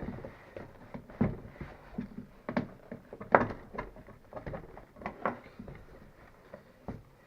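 Irregular knocks and clicks of seat brackets being squeezed and pushed into a new rubber motorcycle seat, the loudest one about three and a half seconds in.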